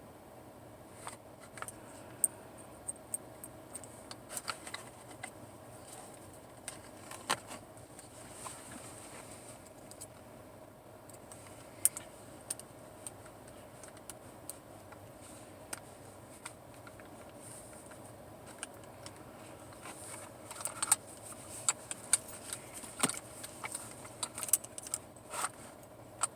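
Tension wrench and pick working inside a Master Lock Magnum level 10 padlock: scattered faint metallic clicks and scrapes, coming thicker and louder in the last few seconds.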